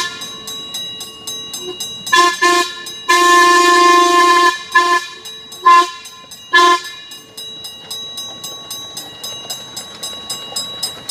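Chime whistle of a ride-on scale model Norfolk & Western class A locomotive blowing a series of blasts: two short, one long of about a second and a half, then three short, with the locomotive's steady running beat underneath.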